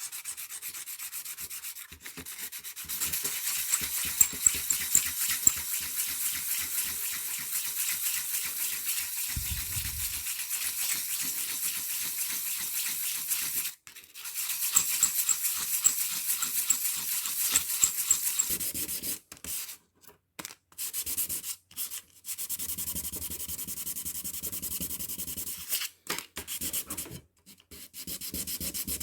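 Abrasive scraping on the steel of a lock pick cut from a hacksaw blade, as it is ground and sanded down to shape: a dense, hissy rasp. It runs steadily at first, then stops and starts several times in the second half.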